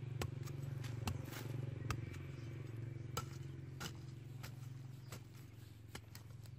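Large knife blade chopping and scraping into dry, stony soil, making short sharp ticks about twice a second. Under it runs a steady low engine-like hum that fades toward the end.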